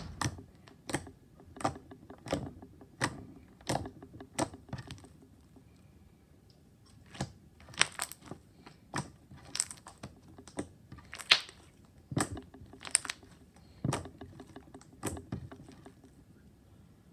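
Homemade white-glue slime being squished and pressed by hand, giving a string of short, sharp wet clicks and pops about one or two a second, with a pause of about two seconds a third of the way in.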